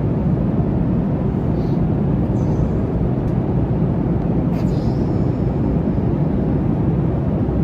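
Steady drone of a jet airliner in flight as heard inside the cabin, an even low noise without changes.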